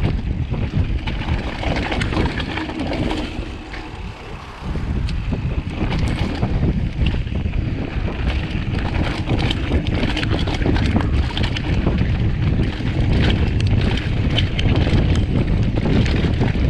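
Mountain bike riding fast down a dirt singletrack: wind buffets the microphone over the rumble of tyres on dirt, with frequent clicks and rattles from the bike over rough ground. It eases off briefly from about three to four and a half seconds in.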